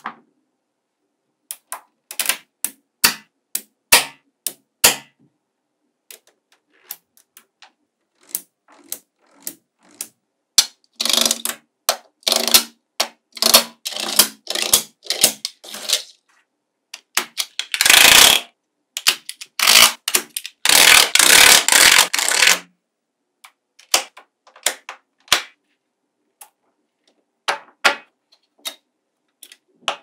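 Small magnetic balls clicking and snapping together as blocks of them are pressed into place. Scattered single clicks give way to denser runs of rattling clatter in the middle and about two thirds of the way through.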